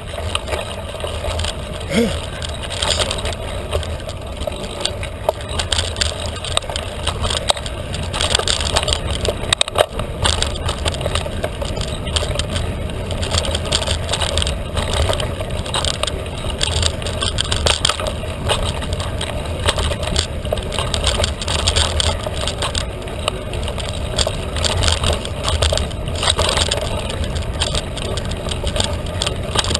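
Felt carbon 29er mountain bike ridden along a dirt trail: a steady rumble of tyres on the ground with small clicks and rattles from the bike, and wind rumbling on the microphone.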